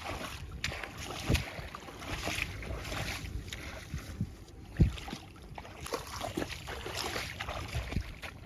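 Strong wind buffeting the microphone, with irregular splashing and sloshing of water as floating grass is scooped out of a flooded, freshly harrowed field; a few louder splashes stand out.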